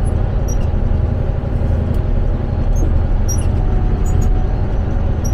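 Motor grader's diesel engine running steadily under load as the machine cuts grade, with a few light clicks about once a second.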